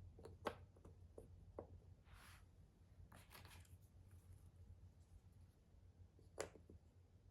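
Cardboard jigsaw puzzle pieces handled on a table, faint: a few soft clicks and taps in the first two seconds, light rustling around two and three seconds in, and one sharper click about six seconds in.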